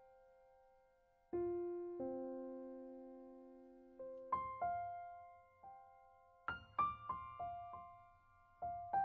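Slow, gentle piano music: single notes and small chords struck and left to fade, sparse at first, then a quicker run of notes a little past the middle.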